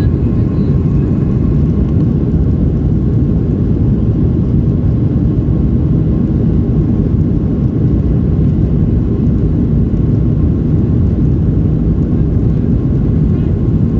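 Boeing 737-800 cabin noise in the climb: a steady, loud, low rumble of the CFM56 engines and airflow, with a faint steady whine.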